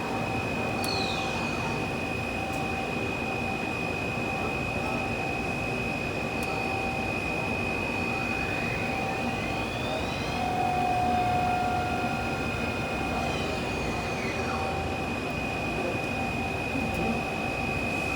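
Mazak MTV 515/40N vertical machining center running, its spindle giving a steady high-pitched whine over machine noise. Faint sweeps rise and fall in pitch around the middle.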